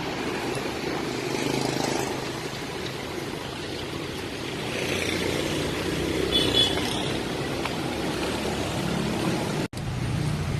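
Toyota HiAce van's engine idling steadily under outdoor background noise, with a short faint high tone about six and a half seconds in.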